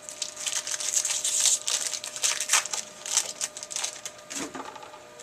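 Foil wrapper of a Bowman Chrome baseball card pack crinkling as it is handled and torn open: a busy, crackly rustle with many sharp crackles, which stops about four and a half seconds in.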